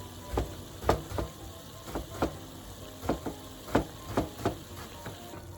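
Ground meat (soboro) frying in a pan as it is stirred, the utensil knocking against the pan at an irregular pace of about two a second.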